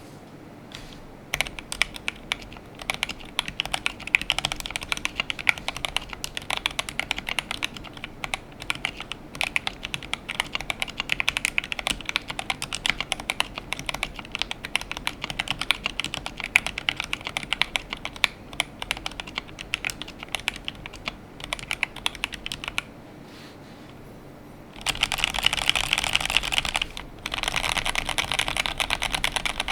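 Typing on an Akko PC75B Plus mechanical keyboard with lubed Akko Jelly Black linear switches, a polycarbonate plate, tape mod and Cherry-profile keycaps: a steady run of keystrokes. After a pause of about two seconds near the end, the keystrokes come much faster and louder.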